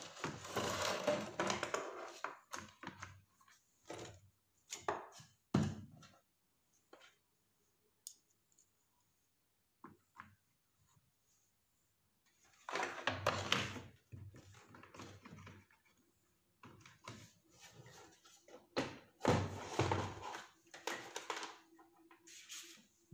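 Induction cooktop being reassembled by hand: plastic casing parts and the glass-top cover rubbing, clicking and knocking into place, in three busier stretches with scattered single clicks between.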